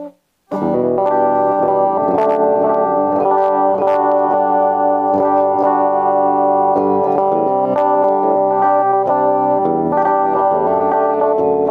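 JCraft S1H electric guitar played clean through an amp on its middle and bridge pickups with the tone rolled down: strummed chords and picked notes ringing on. The playing starts about half a second in.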